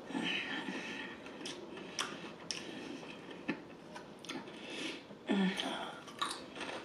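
A person chewing a bite of spicy fried chicken close to the microphone: wet mouth sounds with a few sharp clicks around the middle.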